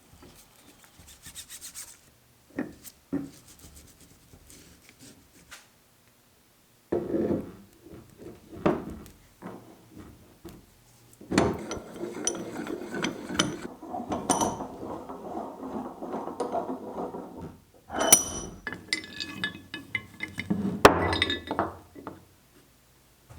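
Metal parts of a cast-iron bench vise being handled: scattered knocks and clinks, a longer stretch of scraping and rubbing through the middle, then a few sharp clinks near the end.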